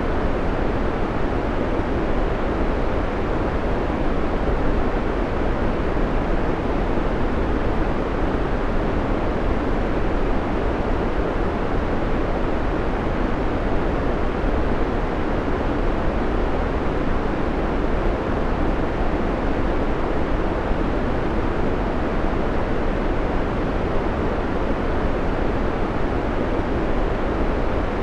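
Steady white noise playing as a timer background, an even, unchanging hiss weighted toward the low end.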